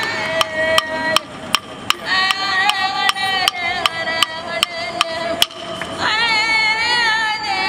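Wooden clapsticks struck in a steady beat, about two and a half strikes a second, under Aboriginal women singing long held notes in a ceremonial blessing song. The singing gets louder about six seconds in.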